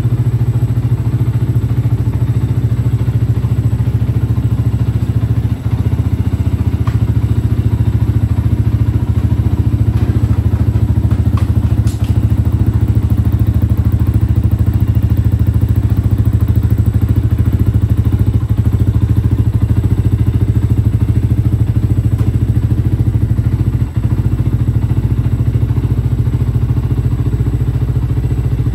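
2014 Yamaha YZF-R125's 125cc single-cylinder four-stroke engine idling steadily through an aftermarket Akrapovic exhaust, a deep, even note.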